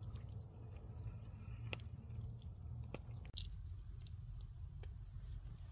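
Wood campfire (a long fire) crackling faintly, with scattered small pops and snaps over a low steady rumble, one sharper snap a little past the middle.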